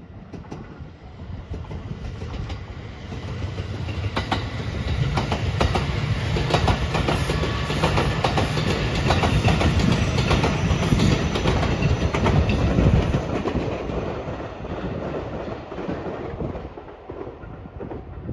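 Electric multiple-unit train passing close by, rising as it approaches, with quick runs of wheel clacks over the rail joints at its loudest, then fading as it draws away near the end.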